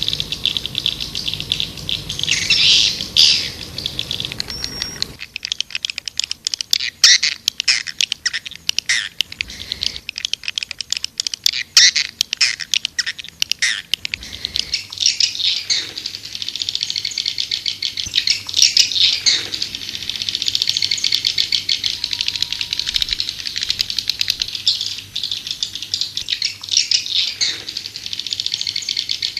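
White-nest swiftlet calls: many overlapping, rapid buzzy twitters, used as a lure ('call') sound to draw swiftlets into a swiftlet house.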